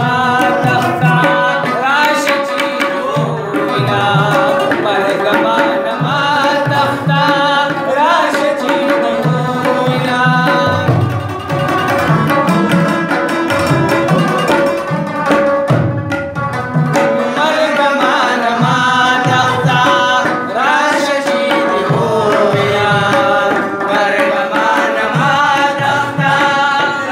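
Rabab, the Afghan/Pashto plucked lute, played in a quick melody with sliding notes, over a hand drum beating a steady rhythm.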